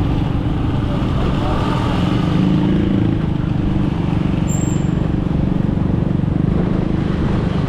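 Motorcycle engine running steadily under way, with road and wind noise of the ride.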